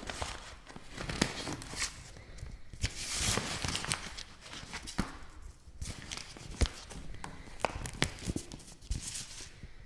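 Kraft paper being crinkled and handled: irregular crackles and sharp snaps, with a denser stretch of rustling about three seconds in.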